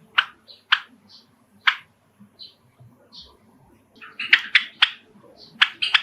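Java sparrow (rice finch) chirping and singing: short, sharp, clicking notes at scattered intervals, bunching into a quick flurry about four seconds in.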